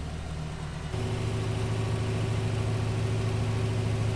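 Engine of a two-wheel-drive GMC Sierra pickup idling, then about a second in it rises to a higher, steady rev and holds there as the truck is driven under throttle on the sandy slope. The attempt is failing: the truck is only two-wheel drive.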